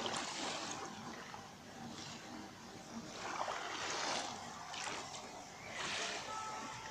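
Small sea waves washing onto the shore, the hiss of the surf swelling and fading every couple of seconds.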